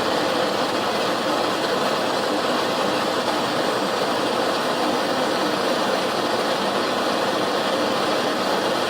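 Blowtorch flame burning with a steady, even hiss, kept on the cable end and mould to hold the solder molten while casting a solder nipple.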